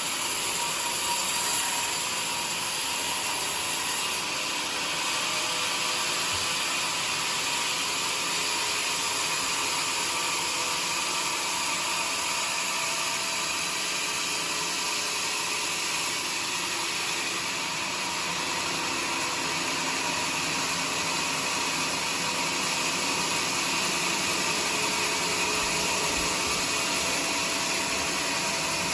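Homemade sawmill running, its blade cutting steadily through a joar log with an even, unbroken noise.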